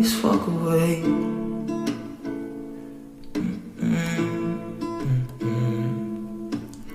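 Background instrumental music: slow chords that change about once a second.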